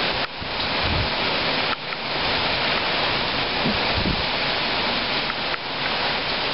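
Strong gusty hurricane wind rushing steadily through the leaves of a large tree and banana plants, with low thumps of wind hitting the microphone about a second in and about four seconds in.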